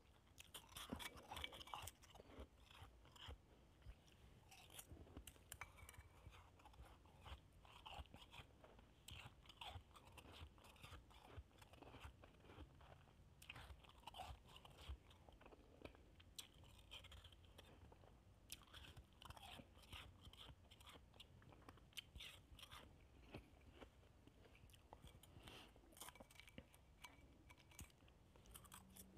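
Shaved ice being chewed: quiet, irregular crunching made of many small crunches.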